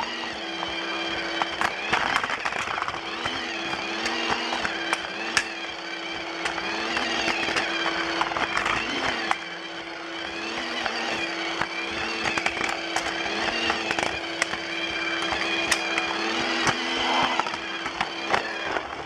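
Lego Duplo battery train running along its plastic track: a steady motor whine that wavers about once a second, with scattered rattling clicks as the wheels pass over the track joints.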